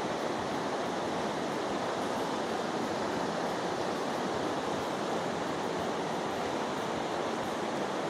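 A fast river rushing over rocky rapids, a steady, even roar of whitewater.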